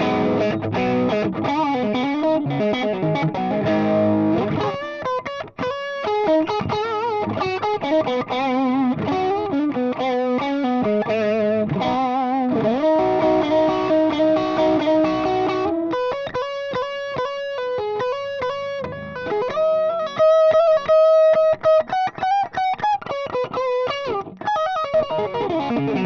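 Electric guitar played through a Trooper OverRider preamp pedal's Ride overdrive channel, its gain raised a little for a light crunchy drive. The guitar plays melodic single-note lead phrases with sustained, vibrato-laden notes, with a brief break about five and a half seconds in.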